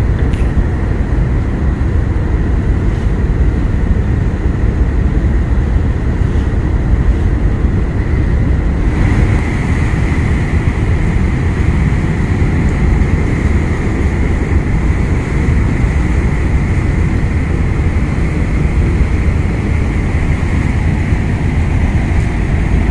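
A moored ro-ro ferry's engines running with its propellers still turning, churning the water beside the stern: a loud, steady low rumble with a faint steady whine above it, which grows stronger about nine seconds in.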